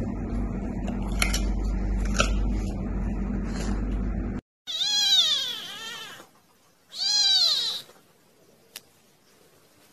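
A tiny calico kitten mewing: two high-pitched cries, each rising and falling in pitch, in the second half. Before them there is a few seconds of low steady background noise with a couple of faint clicks.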